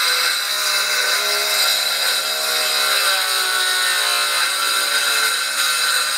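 Cordless circular saw running steadily with a whine as it cuts through the plywood strips of a canoe hull's side, trimming the excess wood off along a pencil line.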